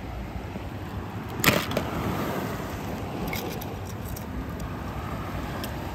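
Surf washing on a beach with wind on the microphone, a steady rushing noise. A sharp click sounds about a second and a half in, with a few faint ticks later.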